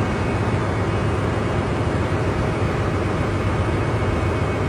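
Steady drone of a ship's engine room machinery: a constant low hum under a wash of even mechanical noise, with no change through the stretch.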